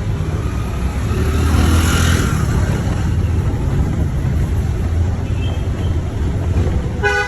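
Road vehicle noise: a steady low engine and road rumble, with a louder passing swell about two seconds in and a brief pitched tone near the end.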